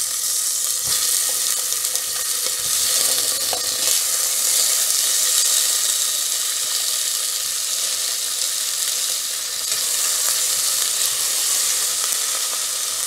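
Tomato wedges frying in hot oil with scallion and garlic in a stainless steel pot: a steady sizzle, with the pieces stirred by chopsticks near the end.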